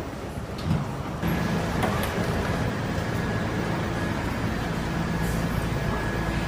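R68 subway train standing in the station with its doors open: a steady hum from the car's equipment, with a faint high whine above it. The hum grows louder about a second in.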